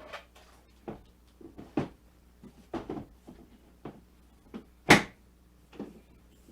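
Objects being handled and set down on a hard surface: a string of irregular knocks and thumps, the loudest a sharp knock about five seconds in.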